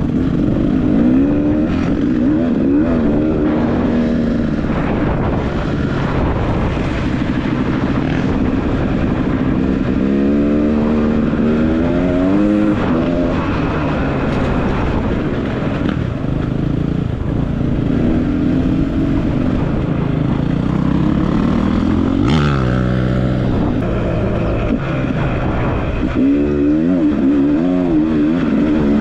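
Dirt bike engine running under load, its revs rising and falling again and again as it is ridden along an off-road trail. About three quarters of the way through there is a sharp knock, and the revs climb quickly.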